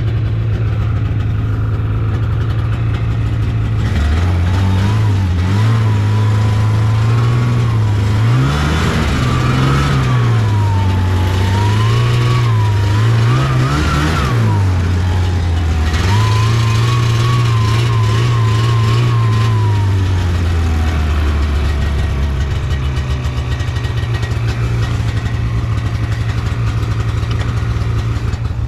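Taiga Varyag 550 snowmobile's two-stroke engine running under way, its revs rising and falling several times, with a thin whine that follows the revs. About two-thirds of the way through it eases off to a lower, steadier pitch.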